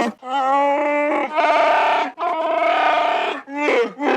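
Chewbacca's Wookiee voice: three growling, howling calls in a row, the first two long and wavering, the last one short near the end.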